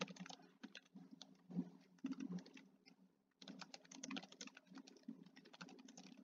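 Faint typing on a computer keyboard: quick, uneven key clicks with a brief pause about three seconds in.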